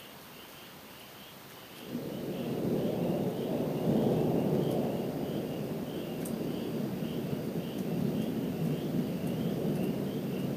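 Distant thunder rolling. It comes in suddenly about two seconds in, is loudest a couple of seconds later, and keeps rumbling after that.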